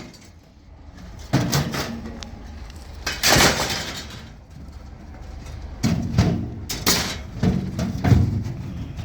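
Irregular clunks and bangs, with one longer scrape, as a scrap dishwasher is shifted and loaded by hand.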